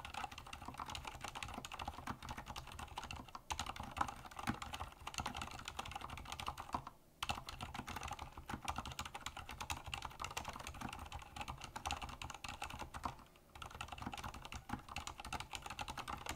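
Continuous typing on a Durgod Fusion mini mechanical keyboard with Cherry MX Silent Red switches and PBT double-shot Cherry-profile keycaps: a dense run of dampened keystrokes, with short pauses about seven and thirteen and a half seconds in.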